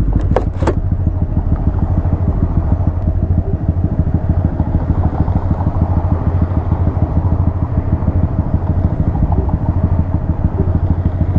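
A 2017 Honda Grom's 125 cc single-cylinder engine running steadily under way, with a few sharp clicks in the first second.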